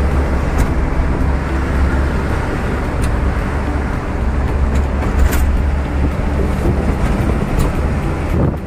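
Steady engine rumble and road noise heard inside a light truck's cab while cruising on a highway, with a few short clicks.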